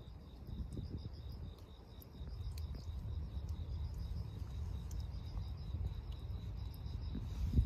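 An insect chirping in rapid, even pulses at a fixed high pitch, over a steady low outdoor rumble. There is a short low thump near the end.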